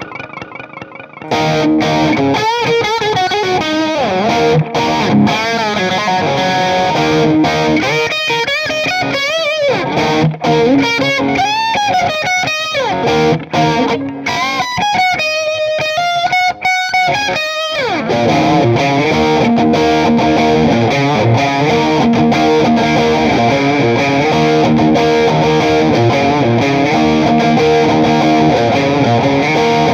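Distorted electric guitar, a replica Gibson Les Paul through a Marshall Silver Jubilee 2525H amp, playing lead lines with string bends and vibrato, then a steady repeating riff from a little past halfway.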